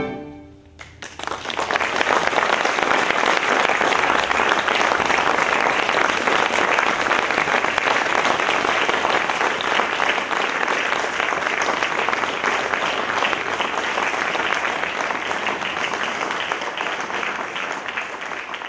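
Audience applause that breaks out about a second in, after a brief hush following the last note, and holds steady before starting to fade near the end.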